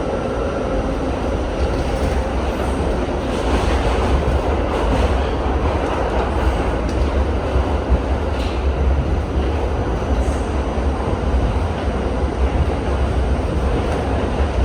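R68 subway train running along the track: a steady low rumble with a few short clicks from the rails.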